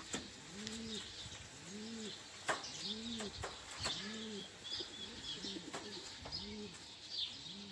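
A pigeon cooing: a run of short, low coos, each rising and falling, about one a second, with faint high chirps of small birds over them.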